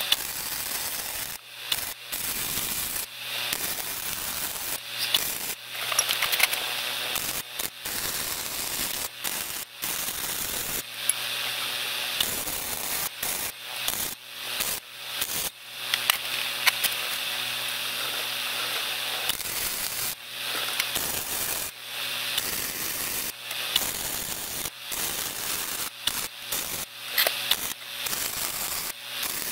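Wire-feed welding arc crackling as discs are plug-welded into drilled holes in steel sheet, in short runs of one to three seconds with brief breaks between them as each weld is started and stopped.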